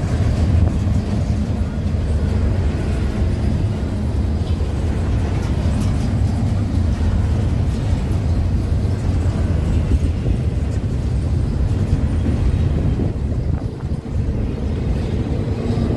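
Steady low rumble of a vehicle in motion, unbroken, with no clear rhythm.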